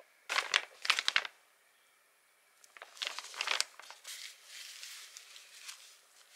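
Plastic diaper packaging crinkling loudly in two bursts as it is handled, then a softer rustling of a disposable diaper being unfolded.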